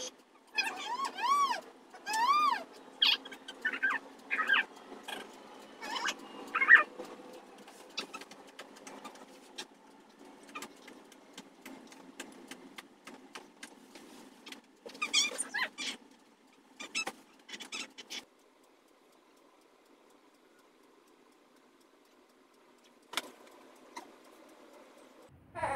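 A two-month-old baby fussing and crying in short wails that rise and fall in pitch, a run of them in the first seven seconds and another around fifteen seconds in, stopping about eighteen seconds in.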